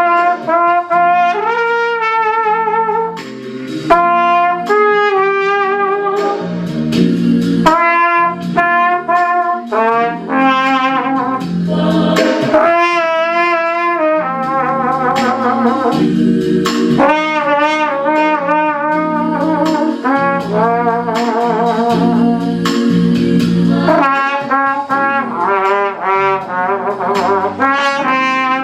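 Flugelhorn playing a slow melody with vibrato over sustained keyboard chords.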